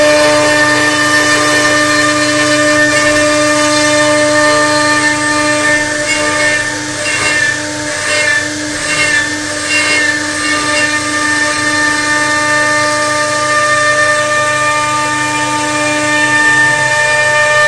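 CNC router spindle running at speed, its bit carving a circular groove in a wooden board: a steady, loud, high-pitched whine with cutting noise. The whine wavers and dips for a few seconds around the middle, then steadies again.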